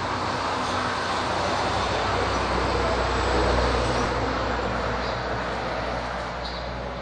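Road traffic noise: a steady rush that swells about three and a half seconds in and then slowly fades, like a vehicle passing.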